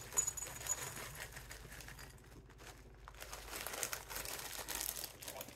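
Plastic snack packet crinkling as it is handled and tipped to pour mixed nuts into a bowl, busier in the second half.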